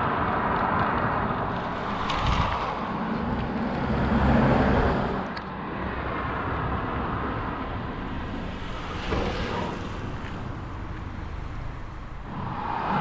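Road traffic noise with a steady deep rumble, swelling loudest as a vehicle passes about four seconds in and again more faintly around nine seconds.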